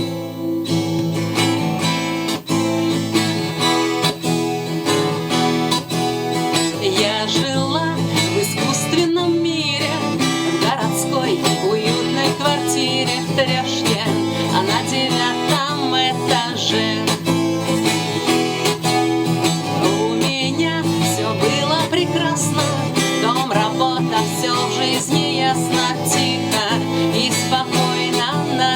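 Acoustic guitar playing a song accompaniment, steady throughout, with a woman singing over it in places.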